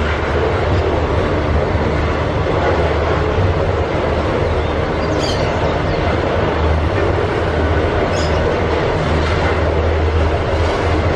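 Double-stack container train's well cars rolling past: a steady rumble and clatter of steel wheels on the rails.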